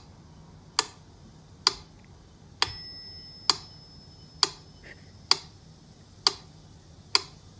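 Steady mechanical ticking, a little more than one tick a second. One tick about two and a half seconds in rings on briefly like a small bell.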